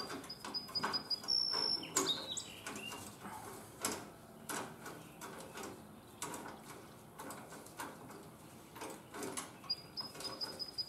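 Light, scattered metallic clicks and knocks of hands working a wing nut loose on a walk-behind mower's drive-belt tensioner. A bird calls twice, a thin high whistle near the start and again near the end.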